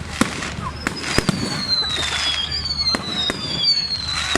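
Fireworks going off: a string of sharp bangs and cracks, with several high whistles overlapping that slowly fall in pitch.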